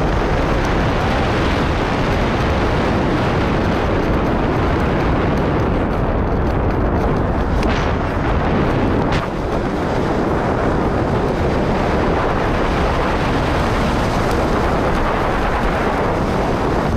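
Rushing air of a tandem skydive freefall buffeting the camera's microphone: a steady, loud wind rush.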